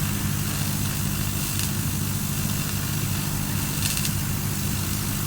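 TIG welding arc from a Miller welder burning steadily: a constant low buzz with a hiss over it, and two faint ticks.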